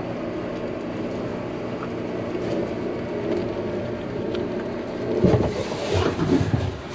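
A steady low mechanical hum, with rustling and knocking handling noise from about five seconds in as dry fiberglass tape is unrolled and pressed against the hull by gloved hands.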